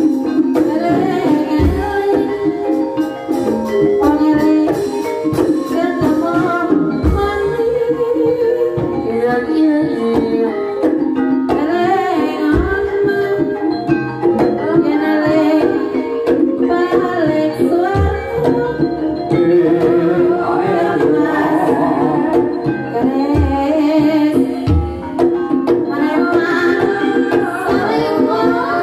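Live Banyumasan gending ebeg music: a woman singing over steady instrumental and percussion accompaniment, with a deep drum thump every few seconds.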